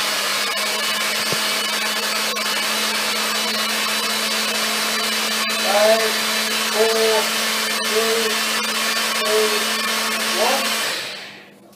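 Personal bullet-style blender running at full speed, a loud steady whirr with a motor hum, blending a fruit smoothie; it winds down and stops near the end.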